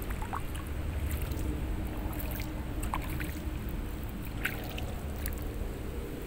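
Low, steady rumble of canal water moving around a wading angler, with a few faint clicks.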